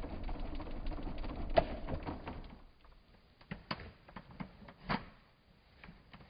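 Electric fan's steady air rush dying away about two and a half seconds in, with scattered clicks and knocks throughout, the sharpest about a second and a half in.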